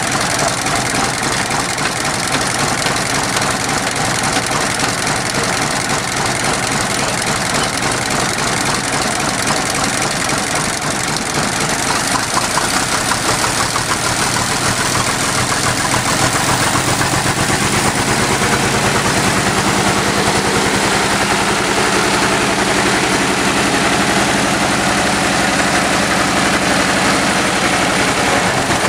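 The six-cylinder engine of a 1925 American LaFrance Type 75 fire pumper running. Partway through it speeds up and gets louder as it is throttled up to drive the fire pump drafting water, then holds steady at the higher speed.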